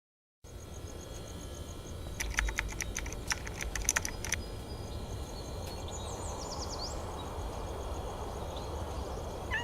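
Low background noise with a cluster of sharp clicks and taps between about two and four seconds in, and a few quick high chirps around six to seven seconds in.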